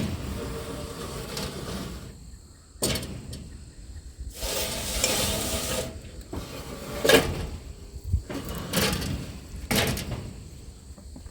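A series of sharp knocks and scrapes as roofing materials are handled and moved across the coop's roof frame, with a longer sliding scrape about four to six seconds in.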